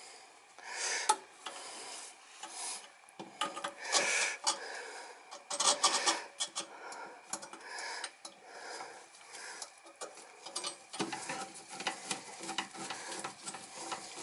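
Irregular scraping, rubbing and light clinking of metal furnace parts handled by hand as a replacement igniter is worked into its mount. The handling grows busier partway through, and the scraping becomes more continuous near the end.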